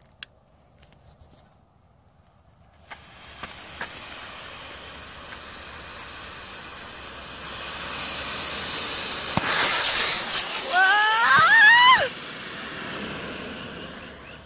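Sugar-propellant rocket motor igniting about three seconds in and burning with a steady hiss that grows louder, then drops off sharply near the end. A wavering cry rises and falls over the hiss shortly before it drops.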